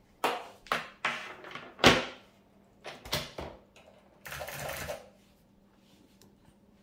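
A second full-size keyboard being handled and set down on a wooden desk: a string of hollow plastic knocks and clatters, the loudest a deep thud about two seconds in. It is then slid briefly across the desktop with a short scrape a little after four seconds.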